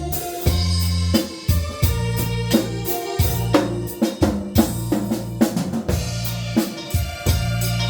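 Live band music in an instrumental passage: a drum kit keeps a steady beat with snare, kick and cymbals over a sustained bass line and electronic keyboard.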